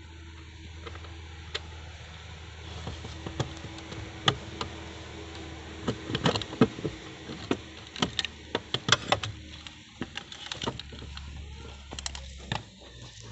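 Irregular metallic clicks and knocks of a hand tool working on the clutch master cylinder mounting behind the pedals under a car's dashboard, busiest in the middle, over a steady low hum.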